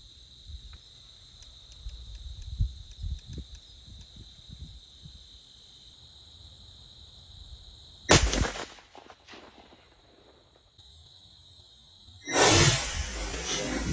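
Crickets trilling steadily. About eight seconds in comes a single sharp shot from a .50-calibre muzzleloader, ringing briefly. About two seconds before the end a loud, sustained rush of noise begins.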